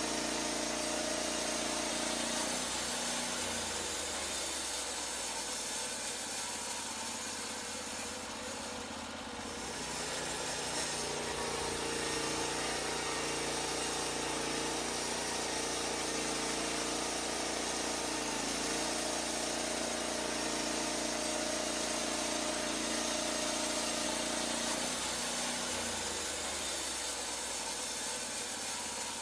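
Portable band sawmill's engine running steadily, its note shifting several times as the mill works.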